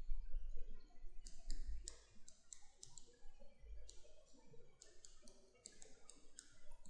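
Stylus tapping and clicking against a pen tablet during handwriting, in two runs of quick, light clicks.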